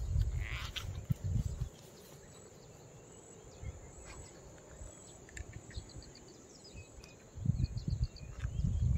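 Gusts of wind rumbling on the microphone at the start and again near the end. In the quiet between, insects chirp in short high trills over a steady high drone.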